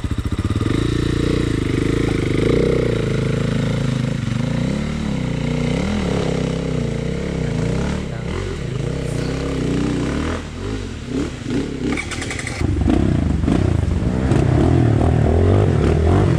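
Dirt bike engine revving up and down under riding, its pitch rising and falling. About ten seconds in it drops back briefly with a few knocks, then runs louder and steadier near the end.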